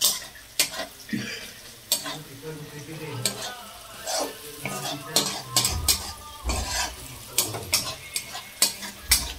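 Sliced onions sizzling as they fry in oil in an iron wok, with a metal spatula stirring and scraping them, clicking sharply against the pan many times. A few dull low thumps come in the middle and near the end.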